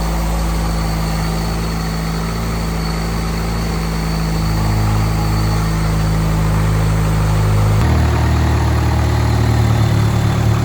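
Turbocharged Honda Civic engine idling steadily while it warms up after a water pump replacement. The sound changes abruptly about eight seconds in.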